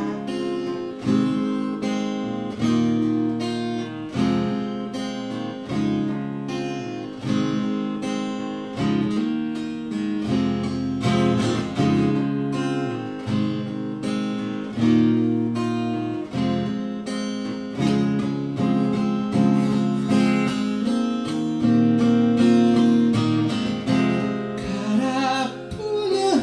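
Instrumental break of a band's song, led by guitar, with strummed acoustic guitar chords over a steady beat.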